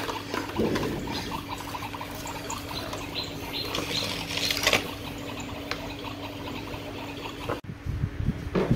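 Water trickling from a toy kitchen's sink faucet, with light clicks of small plastic toy dishes and utensils being handled.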